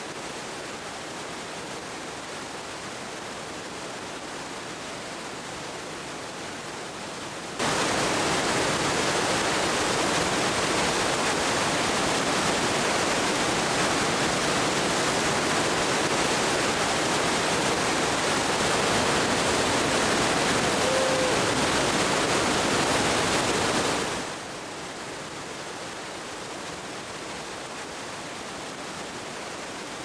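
Falls Creek's whitewater cascade rushing down a granite chute at peak snowmelt flow, a steady roar of water. It gets suddenly louder about seven and a half seconds in and drops back to the quieter level about six seconds before the end.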